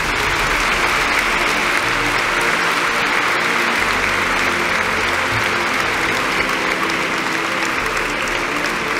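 A large crowd applauding steadily, with music playing faintly underneath.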